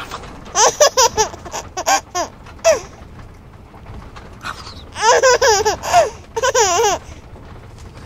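Baby laughing in two bouts of short, high giggles: the first starts about half a second in and runs for about two seconds, the second comes around five seconds in.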